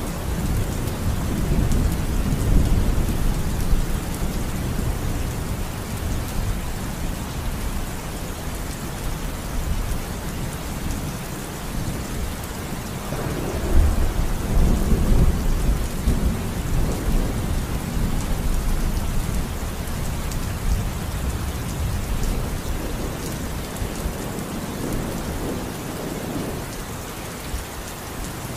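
Heavy monsoon downpour pouring steadily, mixed with a deep rumble that swells and fades, louder about half a second to three seconds in and again around the middle.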